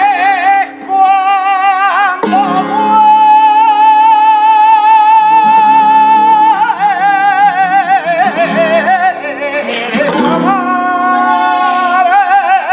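Male flamenco singer (cantaor) singing fandangos in full voice over flamenco guitar. About three seconds in he holds one long high note with vibrato for several seconds, then breaks it into wavering melismatic ornaments.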